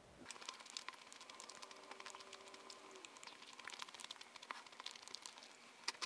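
Faint close-up chewing of a mouthful of egg-battered jeon: a steady stream of small mouth clicks and soft crackles.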